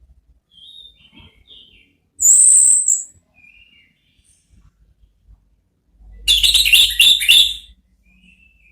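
Orange-headed thrush (anis merah) singing. Quiet short chirps come first, then a loud, high, drawn-out note about two seconds in. From about six seconds in comes a loud rapid run of notes lasting nearly two seconds.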